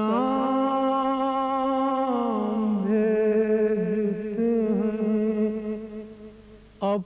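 A man's solo voice chanting an Urdu salam, a Shia mourning elegy. He holds one long note for about two seconds, then drops lower into a wavering, ornamented line that fades, and starts a new phrase near the end.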